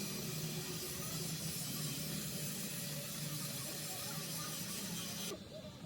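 Steady hiss, like air or spray under pressure, that cuts off suddenly near the end.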